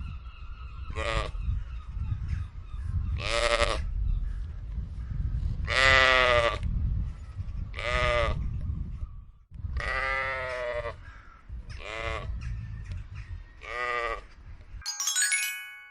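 Sheep bleating, about seven separate bleats a couple of seconds apart, over a low rumble. Near the end, a short chiming jingle.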